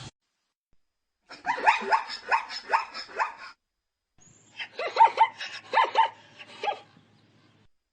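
Zebra barking: two bouts of quick, repeated calls, several a second, the first starting just over a second in and the second near the middle.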